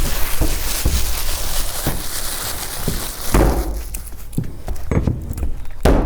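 Roofing work on a roof deck: a series of dull thuds and knocks while ice and water shield membrane is being laid, with a dense rustling hiss for about the first half that then drops away.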